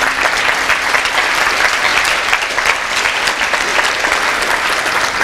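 Audience applauding: many people clapping at once in a dense, steady patter.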